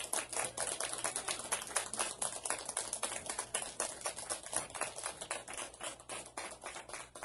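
Audience applauding: many hands clapping in a dense, steady clatter that eases a little near the end.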